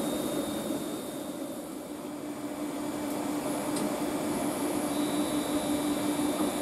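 London Northwestern Class 350 Desiro electric multiple unit moving alongside the platform: a steady electric hum with a faint high whine from its traction and auxiliary equipment.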